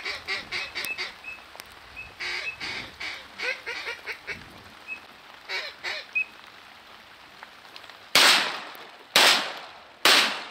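Ducks quacking in a rapid run at first, then a few scattered calls, followed near the end by three shotgun shots about a second apart, each ringing out and fading.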